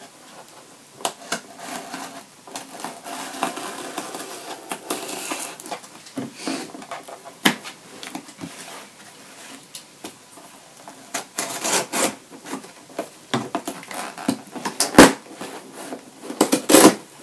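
A cardboard box and its packaging being handled and opened: irregular rustling and scraping, then a run of sharp clicks and knocks, the loudest near the end.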